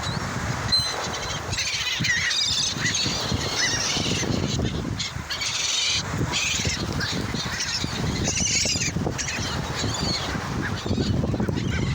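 A flock of seagulls calling over one another, many short squawks and cries overlapping, as they crowd in to be fed, over a steady low rumble.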